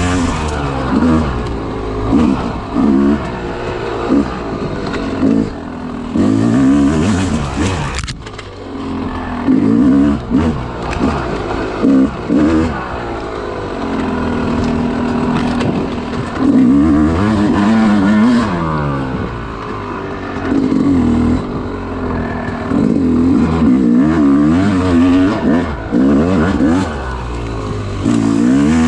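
Yamaha YZ250 two-stroke dirt bike engine revving up and falling off over and over in short throttle bursts. There is a brief drop in the engine note about eight seconds in.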